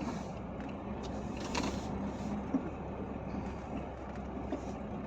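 Truck engine running steadily while driving, heard from inside the cab as a low drone, with a few light clicks and rattles.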